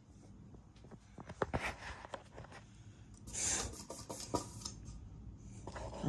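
Faint whoosh of a white 42-inch Hunter ceiling fan slowing down after being switched off, with quiet rubbing and a few light clicks over it.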